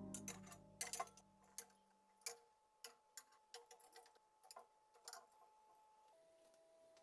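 Background music fading out, followed by a series of light, irregular clicks and taps, faint and spaced unevenly over several seconds.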